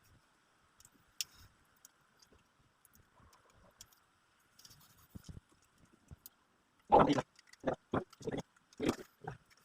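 Mostly quiet, then a quick run of irregular knocks and clattering in the last few seconds.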